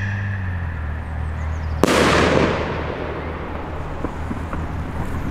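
Scream Rocket 2 firework rocket bursting in the air with a single sharp bang a little under two seconds in, its report fading away over the next second.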